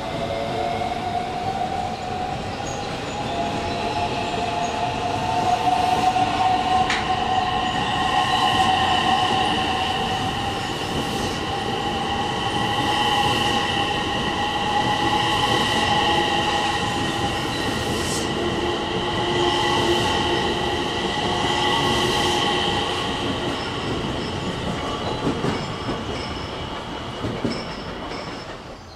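JR West commuter electric train pulling away from the platform. Its traction motors give a whine that rises in pitch as it accelerates and then holds, over the rumble and clicks of wheels on rail as the cars pass. The sound falls away near the end as the train clears the platform.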